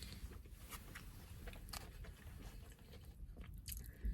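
A person chewing a soft octopus ball (takoyaki) close to the microphone: small, irregular wet mouth and chewing sounds, with a low thump near the end.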